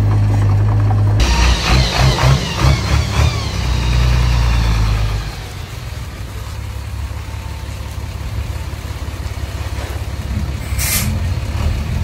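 Heavy diesel earthmoving machinery running under load, with a clattering layer over the engine, then easing to a quieter run about five seconds in. A short burst of hissing air comes near the end.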